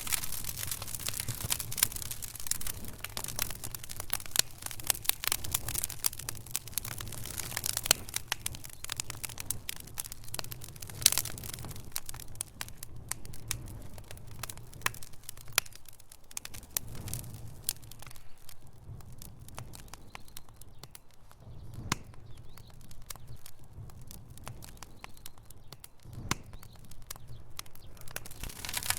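Wood fire burning in a fireplace: logs crackling and popping over a low steady rumble. The crackle is dense at first and thins out after about twelve seconds, with the sharpest pop about eleven seconds in.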